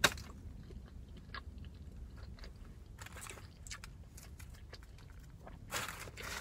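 A person chewing food with the mouth closed, with small faint clicks of the mouth, and one sharp click right at the start.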